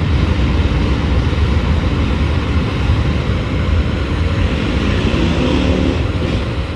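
Motorcycle engines running, a steady heavy low rumble, with one engine note standing out briefly about five seconds in.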